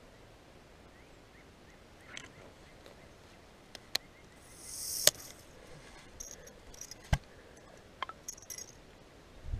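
A baitcasting reel's spool whirs as a cast pays out line, a rising hiss that ends in a sharp click about five seconds in. Several softer clicks and short reel whirs follow.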